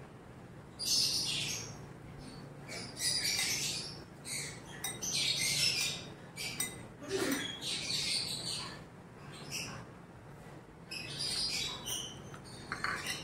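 Wet squelching of raw chicken pieces being squeezed and turned by a gloved hand in a thick hot-sauce and spice marinade, in irregular squishes every second or two.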